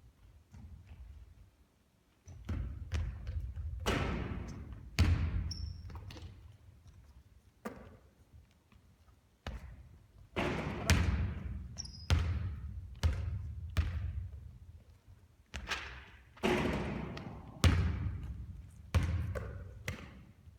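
Basketball bouncing on a court: repeated hard thuds, each with an echoing tail, coming in three runs with a short lull in between.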